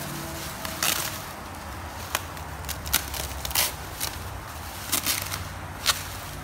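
Bubble wrap being handled and pulled open by hand, rustling with several sharp crackles spread through, over a steady low hum.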